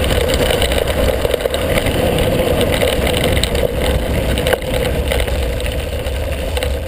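Steady rushing and rumbling from a camera mounted on handlebars descending a gravel track: wind on the microphone and tyres rolling over loose stones, with a few brief clicks.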